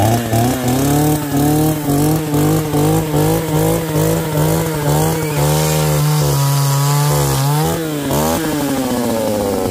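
A small engine running loud, its pitch wavering up and down about twice a second, with a longer rise and fall near the end.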